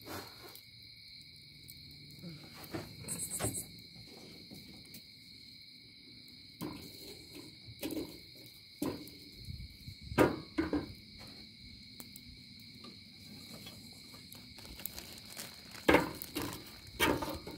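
Crickets chirring in a steady, high, continuous trill. Several sharp knocks and cracks come through it, the loudest about ten seconds in and again near the end.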